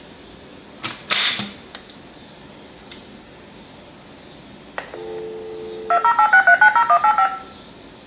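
Telephone line heard through a test set as the fire alarm panel's onboard communicator takes the line with a click. A steady dial tone follows for about a second, then the panel dials out in a fast string of DTMF tones, about a dozen digits in a second and a half. A click and a short burst of noise come earlier, about a second in.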